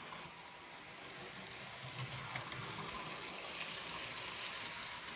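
Hornby 00 gauge model of Toby the Tram Engine running on track with its coaches: a faint motor hum and the rattle of small wheels on the rails, growing louder as it passes from about two seconds in, with a click or two over the rail joints.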